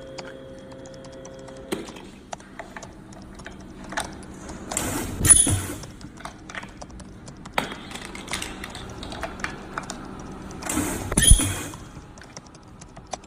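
QJ-1526FZ ultrasonic press welding machine working through two cycles: scattered mechanical clicks and knocks, and twice, about six seconds apart, a loud burst of hiss with a high-pitched whine.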